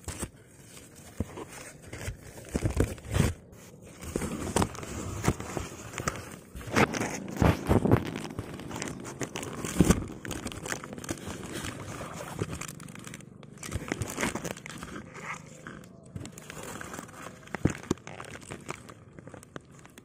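Camera handling noise on the microphone: irregular rubbing, crinkling and knocks as the camera is positioned and adjusted among rice plants. It stops suddenly at the end.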